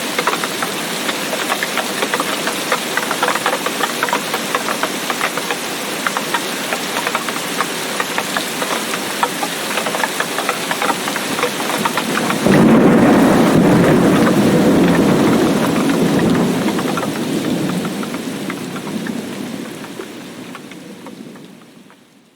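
Tropical rainstorm: heavy rain pouring steadily with dense patter of drops. About halfway through, a loud thunderclap breaks in suddenly and rumbles on, slowly dying away as the storm fades out near the end.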